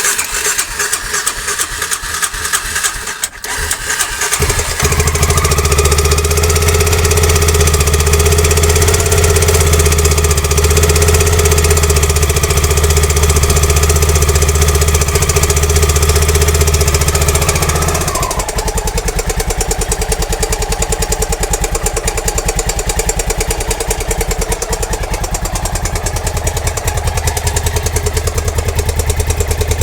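Honda NX650 Dominator's air-cooled single-cylinder engine running with a loud, rapid clacking from inside the engine, a fault whose cause the owner cannot find. About four seconds in the sound grows louder and deeper, and near eighteen seconds it drops back to a lighter, quicker clatter.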